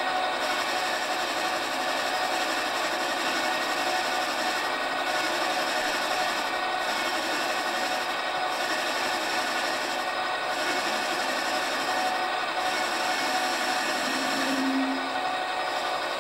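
Metal lathe running with a boring bar cutting the bore of a cast-iron piston-ring blank: a steady motor whine with a continuous scraping from the cut.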